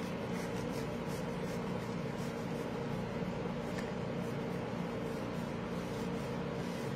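Faint rasping strokes of a chocolate bar being grated on a stainless-steel rasp zester, repeated every fraction of a second, over a steady room hum.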